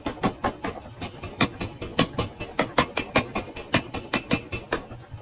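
Mechanical power hammer pounding a red-hot spring-steel knife blade, a rapid, even run of metal-on-metal blows at about five to six a second.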